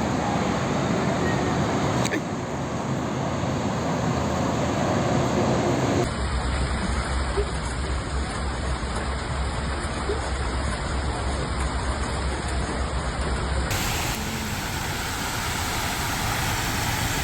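Heavy rain and rushing floodwater, with road traffic, as a steady noise that changes abruptly about 2, 6 and 14 seconds in as one clip cuts to the next.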